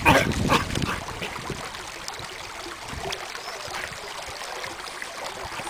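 Footsteps and paws crunching on loose river pebbles, loudest in the first second, over a steady hiss of moving water.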